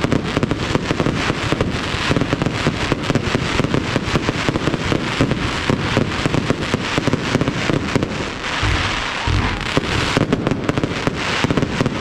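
Fireworks going off in a rapid, continuous barrage of bangs and crackles, with a brief denser rush of noise a little past the middle.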